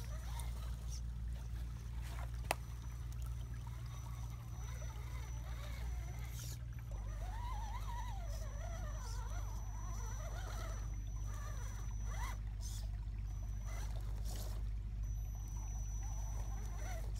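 Shallow woodland creek trickling and gurgling over stones, over a steady low rumble, with a faint high whine that comes and goes.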